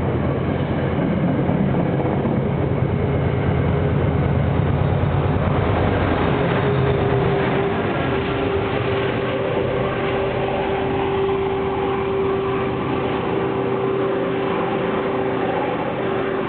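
Departing Metro-North push-pull passenger train, its Genesis P32AC-DM locomotive pushing from the rear: a loud low rumble for about the first six seconds, easing as the train pulls away, with a steady whine held from about eight seconds in.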